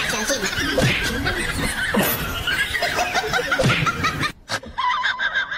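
People laughing and snickering in quick repeated bursts. The laughter cuts off sharply about four seconds in, and a brief, different pitched sound follows near the end.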